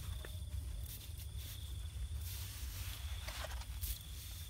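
Wet mud being scraped and packed by hand around a wicker basket trap in a shallow stream: a few soft scrapes and rustles about two and three seconds in, over a steady low rumble and a thin, steady high insect-like tone.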